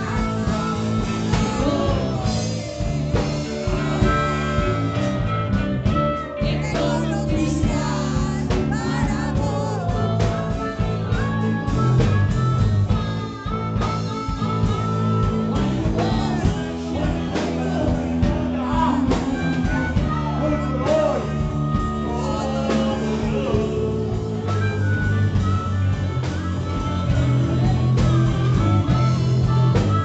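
Live blues-rock band playing, with electric guitar.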